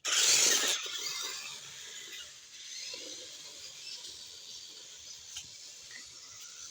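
A 1:10 scale 4WD RC off-road truck's electric motor and gears running: a loud burst as it pulls away, then a steadier, quieter whir as it drives on.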